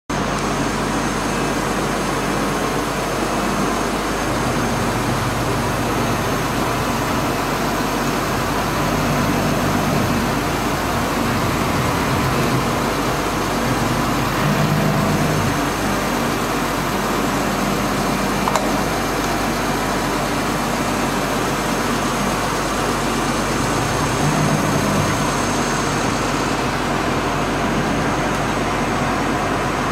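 EMCO Turn 420 MC Plus CNC sliding headstock lathe running: a steady machine hum with a thin high whine, its low tones shifting every few seconds. A single sharp click a little past halfway.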